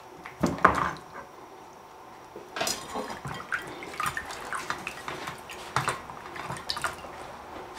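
Water splashing and dripping as tomatoes and onions are washed by hand in a plastic bowl of water, with knocks of a knife and a plastic plate against the bowl. One sharp knock comes about half a second in, then a run of small splashes and knocks from about two and a half seconds.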